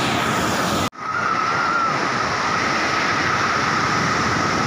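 Ocean surf breaking and washing up onto a sandy beach, a steady rushing wash. The sound drops out for a split second about a second in, then resumes.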